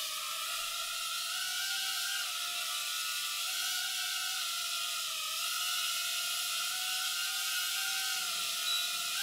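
Revell Nano Hex hexacopter's six small DC motors and propellers whining steadily in flight, the pitch wavering slightly up and down as the throttle is adjusted.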